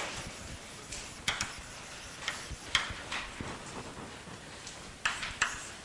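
Chalk on a blackboard: faint, scattered ticks and short scratches as it writes, with sharper clicks about a second in, around the middle and near the end.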